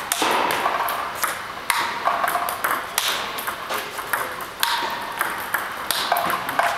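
Table tennis balls clicking in quick succession: a ball robot feeds topspin and the player drives each ball back with a XIOM Janus DF 1.5 rubber on a Hallmark Aurora blade, with sharp ticks of ball on racket and on the table.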